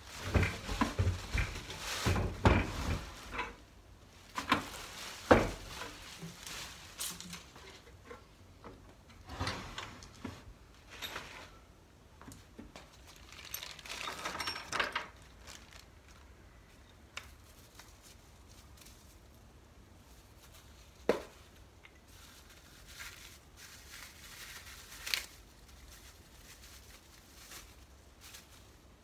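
Unpacking a new benchtop thickness planer: plastic wrapping and small parts bags rustling, with irregular knocks and clunks of the machine and its parts being handled on the bench. The knocks come thickest in the first few seconds, then two single sharp knocks near the end.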